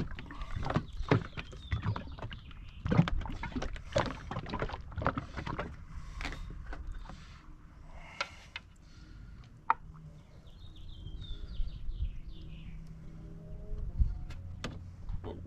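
A capped plastic jug of motor oil with Lucas oil stabiliser added being shaken to mix it, the liquid sloshing and the jug knocking repeatedly for about six seconds, then a few lighter knocks and handling sounds.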